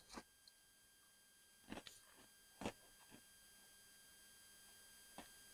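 Near silence: a faint steady high-pitched electronic tone, with a few faint clicks.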